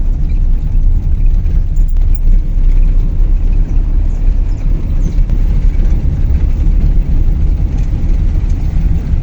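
Car driving, heard from inside: a steady low rumble of engine and road noise.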